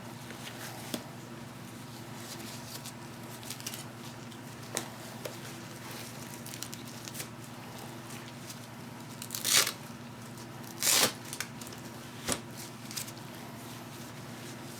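Small handling clicks and taps over a steady low hum, with two short tearing, rasping noises about nine and a half and eleven seconds in.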